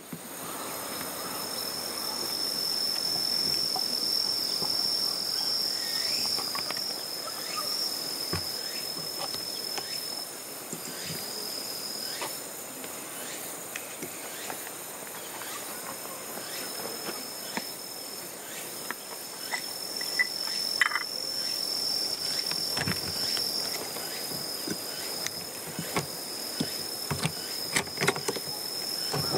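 Cicadas droning, a steady high-pitched buzz that breaks off briefly now and then, with scattered faint clicks and knocks later on.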